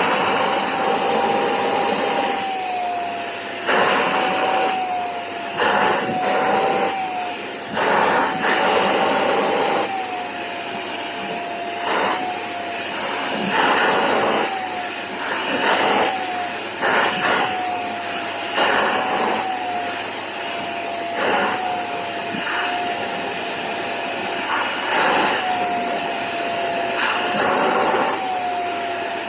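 Vacuum cleaner running steadily, its motor tone wavering slightly, with repeated rushes of louder airflow about a second long as the nozzle is worked over a pet's coat.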